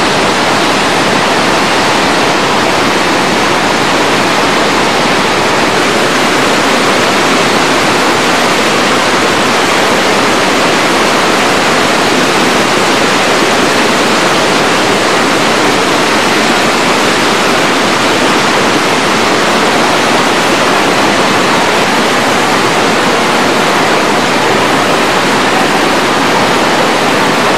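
Fast-flowing, silt-laden mountain river rushing over boulders: a loud, steady, unbroken wash of water noise.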